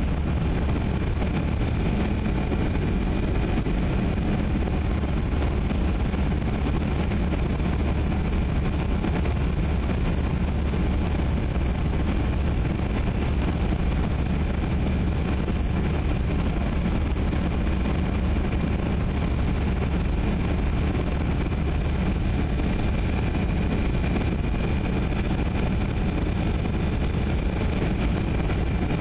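Steady cabin noise of a Boeing 737-200 on approach: its Pratt & Whitney JT8D turbofan engines running with a rush of airflow, under a faint steady high whine.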